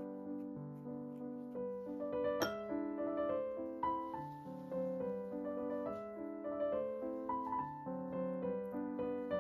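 Background piano music: a gentle melody over held chords, with one brief click about two and a half seconds in.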